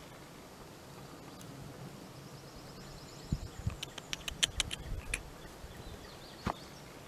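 Dry grass and weeds crackling and snapping as a nine-banded armadillo roots through them: a burst of crackles about halfway through and one more snap near the end. A faint quick high trill comes just before the crackles.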